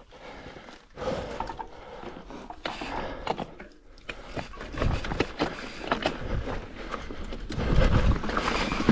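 Mountain bike rolling down a loose, rocky dirt trail: tyres crunching over gravel and stones, with irregular rattling clicks and knocks from the bike. A low rumble grows louder from about two-thirds in.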